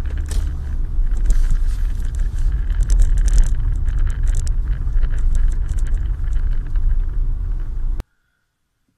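Road noise inside a moving car: a steady low rumble of tyres and engine with scattered light ticks, cutting off suddenly about eight seconds in.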